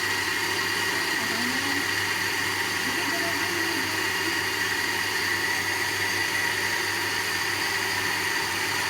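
Panasonic countertop blender running steadily, its motor giving a constant high whine over a low hum as it blends a mango shake.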